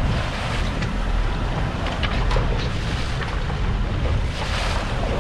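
Wind buffeting the microphone on a moving fishing boat, over water rushing and splashing against the hull and a steady low rumble from the boat.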